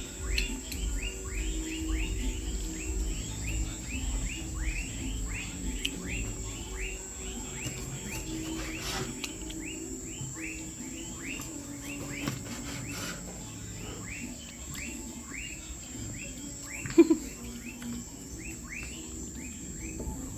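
A bird calling a long series of short, downward-slurred chirps, about two to three a second, with a steady high-pitched hum underneath. A single sharp knock comes near the end.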